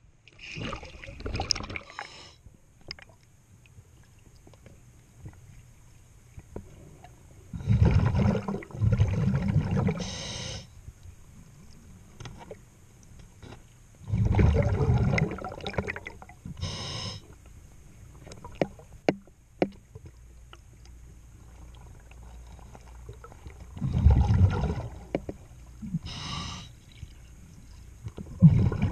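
Underwater sound of a diver breathing through a regulator: loud rumbling bursts of exhaled bubbles, each two to three seconds long, coming about every six to ten seconds, with quieter gaps and small clicks between breaths.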